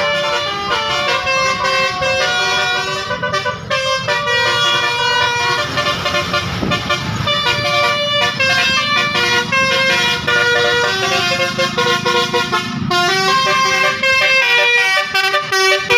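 Bus 'basuri' multi-tone musical air horn playing a quick melody of stepped notes, without pause, growing louder near the end.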